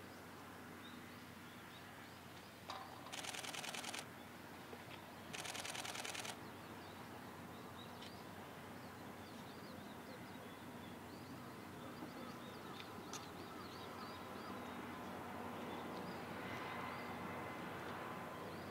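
Two bursts of rapid camera shutter clicks, each about a second long and a second or so apart: a camera firing in continuous shooting mode. Faint bird chirps run under them.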